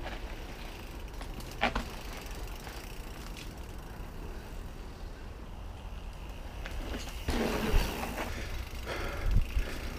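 Faint low wind rumble, then, about seven seconds in, the louder noise of a 2018 Giant Trance 2 full-suspension mountain bike being ridden down a dirt trail, heard from a camera mounted on the bike: tyre and wind noise with knocks and rattles over bumps.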